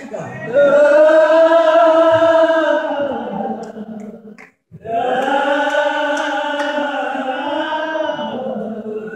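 Church congregation singing an old hymn slowly, led by a woman, each phrase drawn out in long held notes. Two long phrases, with a brief silent break about four and a half seconds in.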